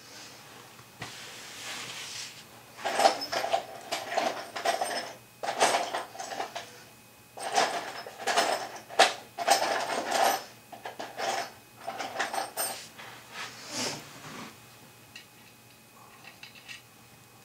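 Metal scraping and clattering in a string of short bursts, each under a second, with a slight ringing tone. The bursts run from about three seconds in to about fourteen seconds, followed by a few faint clicks.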